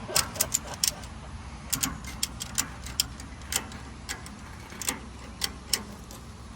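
Ratchet tie-down strap being worked tight: a string of sharp, unevenly spaced metal clicks from the ratchet handle over a low steady background rumble.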